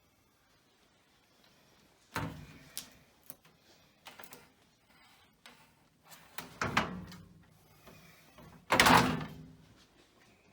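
A door being pushed open in a derelict building: a few separate knocks and scrapes, with the loudest, longest scrape about nine seconds in.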